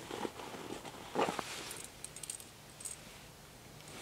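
Small pieces of metal gear clinking and ticking lightly as they are handled, with a brief louder knock or rustle about a second in.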